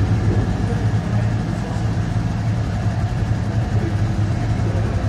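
An engine running steadily at idle: a low, even hum that holds the same pitch throughout.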